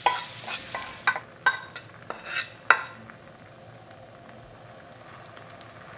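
Potato pancake batter scraped out of a bowl into a hot oiled frying pan: a utensil clinks and scrapes against the bowl several times in the first three seconds. After that the batter sizzles faintly and steadily as it starts to fry.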